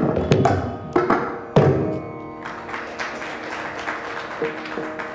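Live Carnatic music: mridangam strokes over held drone notes. The strokes stop about two seconds in and the held notes ring on.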